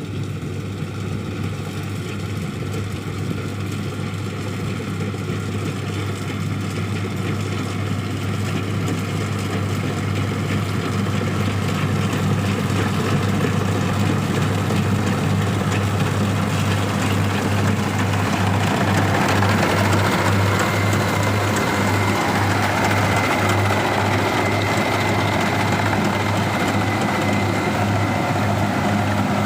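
Kubota DC-60 rice combine harvester running steadily under load with a strong low hum. It grows louder from about a third of the way in, and about two-thirds in a brighter upper layer with a thin steady high whine comes in.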